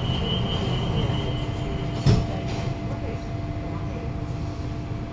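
The sliding doors of a Kawasaki-CRRC CT251 metro car closing and shutting with a single loud thump about two seconds in, heard from inside the carriage over the train's steady low hum. A steady humming tone sets in just after the doors shut.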